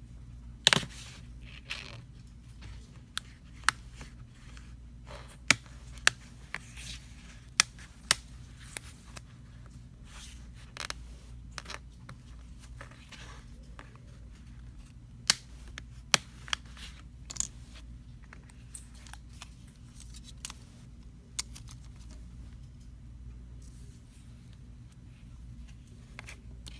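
A pry tool being worked around the seam between a ZTE Blade Spark Z971 phone's frame and its LCD, giving irregular sharp clicks and light scraping as the screen is separated. A steady low hum runs underneath.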